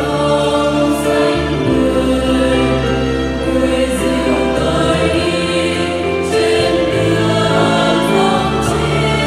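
Mixed choir of men and women singing a Catholic hymn in Vietnamese, in sustained chords, accompanied by an electronic keyboard with a held bass line.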